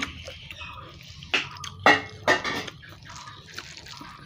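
A hand squishing and mixing rice with fish curry on a steel plate: wet squelching, with a few sharp clicks near the middle.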